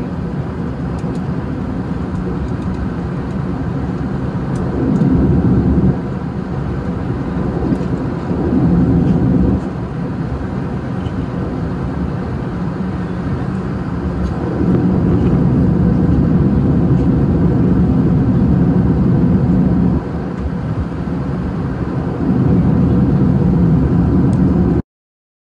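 Steady cabin noise of an Airbus A380 in cruise, heard from a window seat: a continuous rumble of engines and airflow that swells a little louder several times for a few seconds at a time, then cuts off abruptly near the end.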